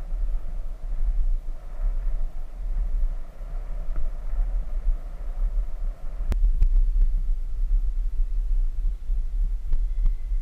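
Wind buffeting the microphone of a camera riding on a moving Trikke, an uneven low rumble, with a hiss of wheels rolling on an asphalt path. A single sharp click about six seconds in.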